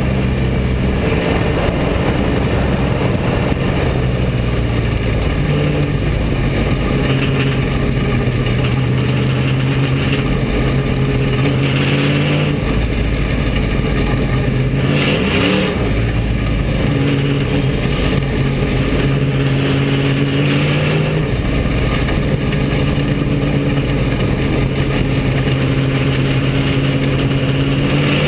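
Bomber-class dirt track race car's engine running hard at racing speed, heard from inside the car with the loud rush of the car and the track around it. The engine pitch drops and climbs back again twice, a little before halfway and again later, as the throttle is lifted and reapplied.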